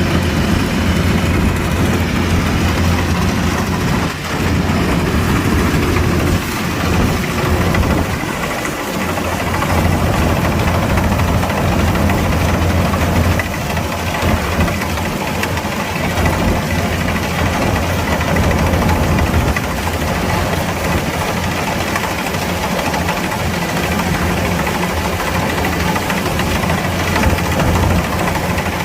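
Kubota DC-105X combine harvester running steadily: a constant low engine drone with a dense mechanical clatter and hiss over it, dipping briefly about eight seconds in.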